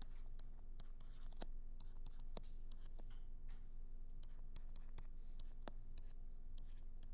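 Stylus pen on a touchscreen while drawing: a string of light, irregular taps and scratches, over a steady low hum.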